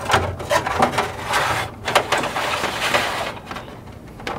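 Electrical wires and a plastic zip tie rustling and scraping as they are fished through the openings of a car hood's inner panel, with many small clicks and taps. It is busy for about three seconds, then quieter.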